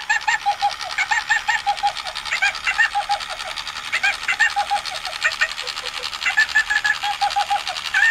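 A 1995 Tickle Me Elmo giggle box running: Elmo's recorded high-pitched giggle plays from its small speaker in quick runs of short 'ha-ha' syllables. Under it, the vibration motor with its off-centre weight buzzes and rattles the plastic box. The toy is working again after reassembly.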